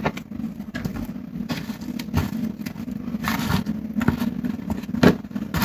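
Pakora batter ingredients (sliced potato, onion and green chillies with gram flour and spices) being mixed dry in a bowl: irregular scraping and clicking, over a steady low hum.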